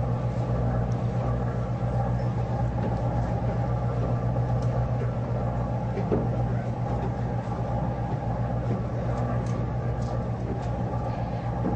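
Tour boat's engine running steadily at low speed, heard on board as a low, even hum with a haze of water and wind noise.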